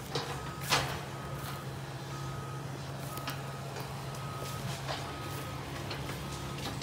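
Excavator's engine running steadily while its backup alarm beeps about once a second, with a few sharp knocks, the loudest about a second in.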